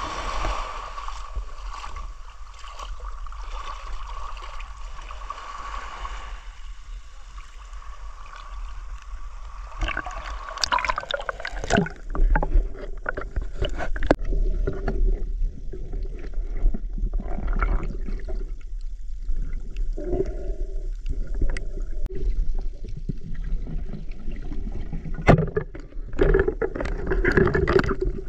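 Sea water sloshing and splashing as a diver wades in shallow water, with a steady high hum. About ten seconds in, the sound turns muffled and underwater, with gurgling, scattered knocks and a deep rumble as the diver goes under.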